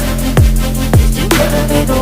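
Electronic backing music between sung lines: a heavy beat with deep bass hits that slide down in pitch, over a held low bass note, with no singing.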